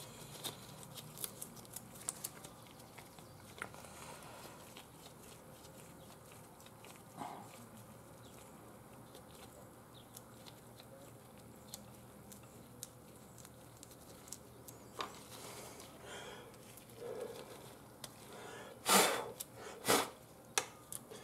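Gloved hands handling the wiring of a lawn tractor's electric PTO clutch and a plastic wire nut: faint scattered clicks, ticks and rustles. Two louder sharp knocks come close together near the end.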